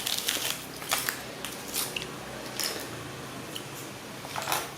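Plastic toy and candy packaging being handled and opened: short crinkling and clicking bursts, several times, the biggest near the start and near the end.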